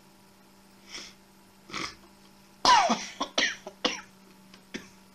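A man coughing into his hand: a couple of short sounds in the throat, then from about two and a half seconds in a fit of several coughs, the first the loudest.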